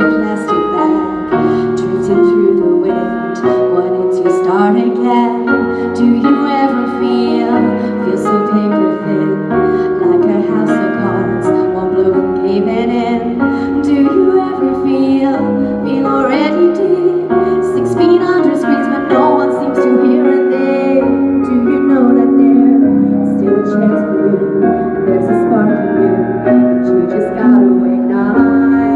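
A woman singing a slow pop song over a piano-led backing track.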